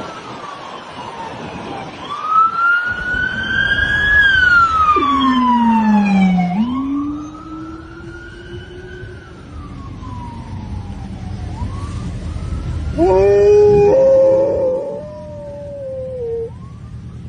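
Wailing emergency-vehicle siren sweeping slowly up and down in pitch. About 13 seconds in, a dog starts howling along with it.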